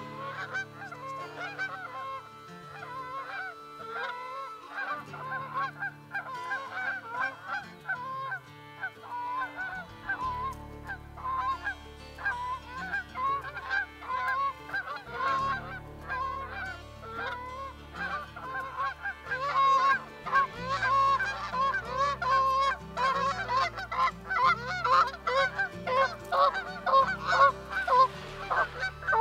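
A flock of Canada geese honking, many overlapping calls, growing louder and denser over the second half.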